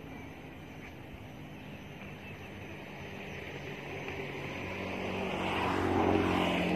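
A motor vehicle's engine passing close by, its low hum growing steadily louder and loudest near the end.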